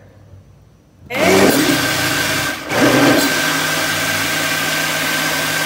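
Electric countertop blender switched on about a second in, its motor running at full speed as it blends a liquid durian and coconut-milk mixture. It drops out for a moment a little under three seconds in, then runs again steadily with a faint whine.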